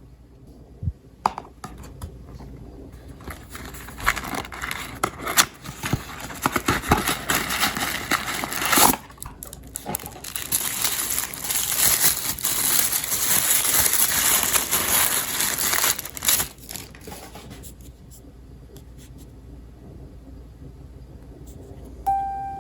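Many glass marbles rolling and clattering down a wooden marble run: a few separate clicks at first, then a dense, continuous rattle that thins out and stops well before the end.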